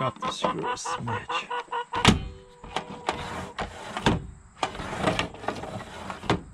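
Sliding door panel of an automatic chicken-coop door worked up and down by hand in its track, scraping and rattling, with a sharp clack about two seconds in.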